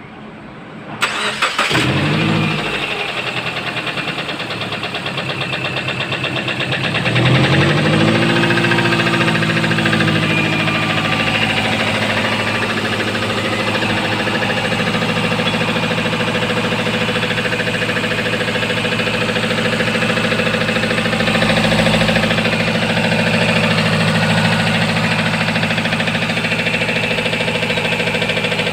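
Subaru Forester's flat-four engine starting about a second in, rising in speed briefly, then settling into a steady idle with a fast, even knock running through it: the engine knocking the car is being checked for.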